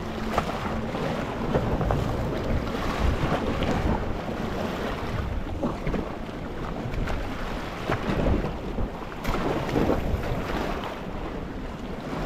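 Gentle sea waves lapping and washing over a rocky shore: a continuous rush of water broken by many small splashes and surges.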